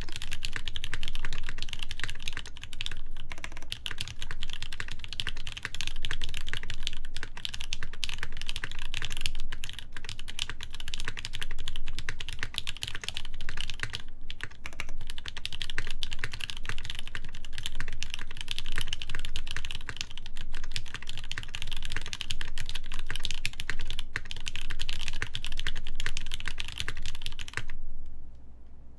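Steady, fast typing on a Hineybush Ladybird mechanical keyboard with lubed Gateron Ink linear switches, an FR4 plate and GMK ABS keycaps: a dense run of keystroke clacks. The typing stops briefly near the end.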